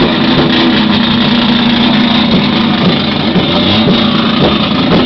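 Race car engine, the number 7 Mouras-prepared Chevrolet, running loudly at a steady speed with a continuous drone.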